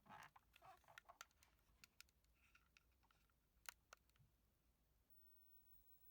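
Near silence, with a scatter of faint short clicks and taps in the first four seconds.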